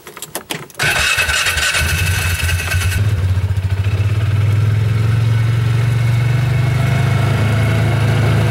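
Polaris Ranger UTV engine started with the key: a brief crank, catching under a second in, then running steadily.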